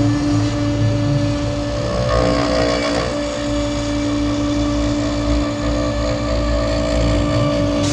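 Onefinity CNC router spindle running at 18,000 rpm, a steady whine, as its spiral bit mills a pocket into an end-grain larch block, with the noise of the bit chewing through the wood.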